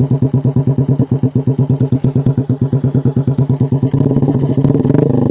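2023 Suzuki Smash R's single-cylinder engine running through an SC Project aftermarket exhaust with a loud, even pulsing beat. About four seconds in, the revs rise.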